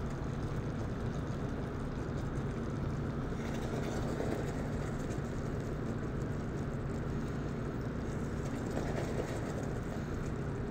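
Hot caramel bubbling and hissing in a saucepan as warm cream is poured in slowly and stirred in, the hiss growing stronger about three and a half seconds in. Under it a steady low hum runs throughout.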